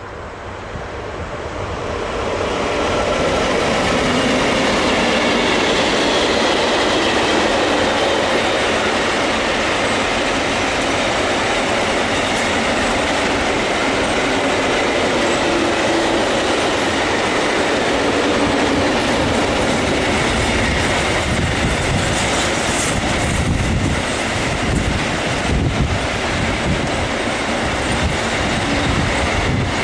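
Heavy iron-ore freight train of loaded hopper wagons passing at speed. Its noise builds over the first few seconds as the train approaches, then holds as a steady, loud rolling of steel wheels on the rails as the long string of wagons goes by.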